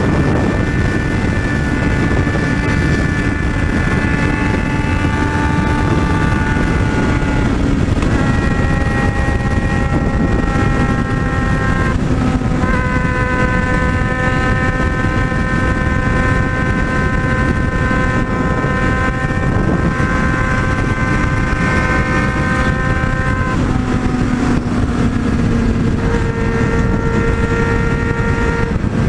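Yamaha XJ6 inline-four motorcycle ridden at high highway speed: loud, steady wind rush over the engine's drone. Layered steady tones over it change pitch in sudden steps every few seconds.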